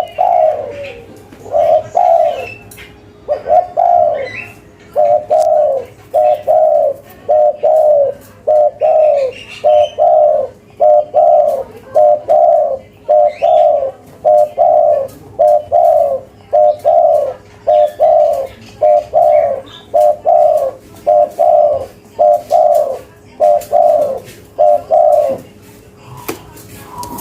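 Spotted dove (tekukur) cooing over and over in quick, even phrases, each a short pair of low notes, a little more than one phrase a second; the cooing stops about two seconds before the end. Faint scattered clicks run underneath.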